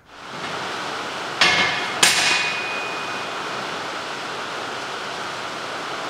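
Heavy rain outside, a steady hiss. About a second and a half in come two metal clangs half a second apart as steel stock is handled; the second rings on briefly.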